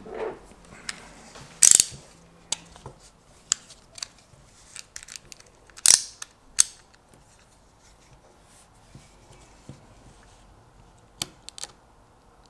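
Scattered clicks and knocks of tools being handled on a wooden table, with the ratcheting click of a snap-off utility knife's blade slider as the blade is pushed out around the middle.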